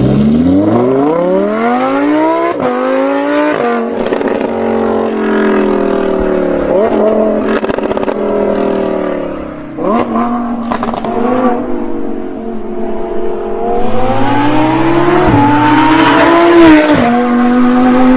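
Lamborghini Huracán LP610-4's V10 through a valved Fi catback exhaust with catless downpipes, accelerating hard. The revs rise, drop sharply at each quick upshift, then climb again, with short sharp crackles between the pulls.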